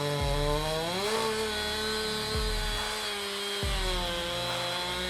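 Husqvarna 365 two-stroke chainsaw running hard while cutting wood. Its engine pitch rises about a second in, holds, sags slightly, then picks up again near the end.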